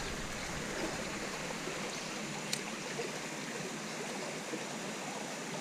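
Small creek's water running steadily, with one brief sharp click about two and a half seconds in.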